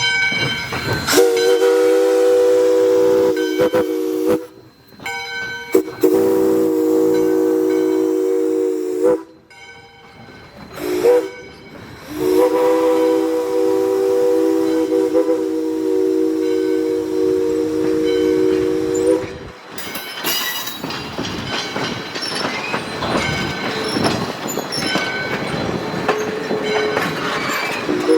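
Steam whistle of ALCO 2-8-2 Mikado locomotive #40 sounding a chord in two long blasts, a short one and a long one, the grade-crossing signal, followed by the train rumbling and clattering along the track.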